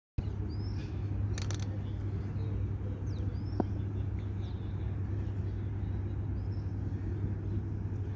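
Steady low outdoor rumble that starts abruptly, with a few faint, short high chirps over it.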